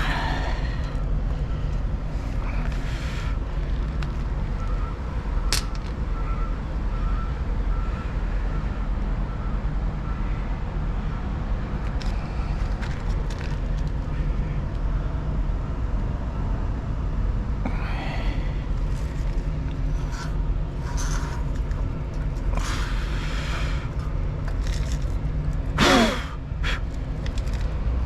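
Steady low mechanical drone with a constant hum and a few brief knocks and clicks. Near the end comes a short tone that falls quickly in pitch.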